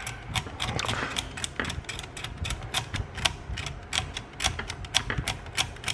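A blade scraping conformal coating off a circuit-board trace, a rapid run of irregular scratchy strokes, several a second.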